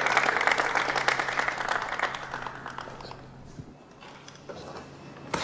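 A small group applauding, the clapping dying away about three seconds in.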